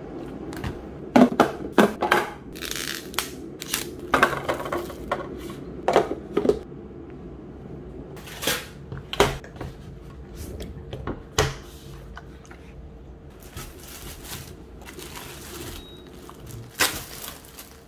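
Plastic grocery packaging handled on a table: repeated crinkling of plastic wrap and a plastic bag, with knocks and clicks as packs are picked up and set down.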